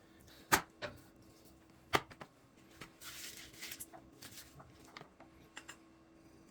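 Scattered knocks and clicks of food preparation in a small kitchen, the sharpest about half a second and two seconds in, with a brief hiss about three seconds in.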